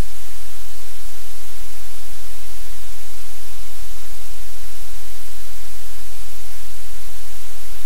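Loud, steady hiss of static that covers the whole sound track, with an unsteady rumble underneath and nothing else standing out.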